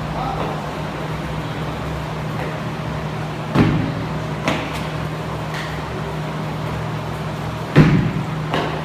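Box jumps onto a wooden plyo box: two heavy landing thumps about four seconds apart, each followed a moment later by a lighter thud, over a steady low hum.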